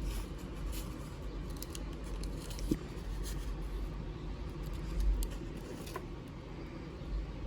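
Scattered small clicks and taps of objects being handled, over a steady low hum.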